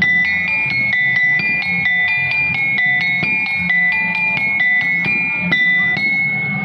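Music: a quick tinkling melody of clear, bell-like notes, several a second, ending on one held note near the end.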